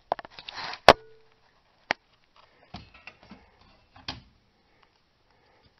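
Handling noise from work at a car's rear wheel hub: a short rustle, then a sharp click with a brief metallic ring about a second in, another click a second later, and a few faint clicks and scrapes.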